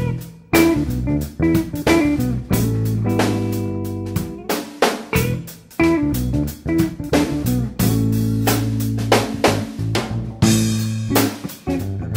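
Background music: a guitar-led track with bass guitar and a drum kit keeping a steady beat.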